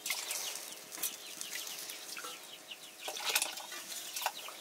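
Water sloshing and being poured from an aluminium bowl into a cooking pot, with a louder splash about three seconds in. Small birds chirp over it in many quick, falling peeps.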